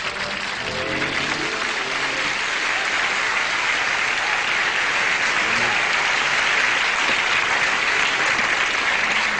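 Studio audience applauding steadily. A few notes of band music fade out in the first second or so.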